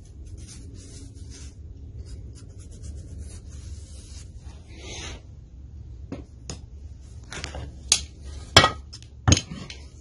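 Metal engine parts and hand tools handled on a workbench: rubbing and light clinks, then three sharp metal clanks in the last two seconds, the middle one loudest.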